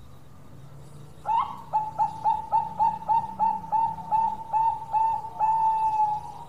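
Bangkok-type zebra dove (perkutut) singing: about a second in, a rapid run of roughly fifteen short cooing notes, about four a second, ending in one longer drawn-out coo.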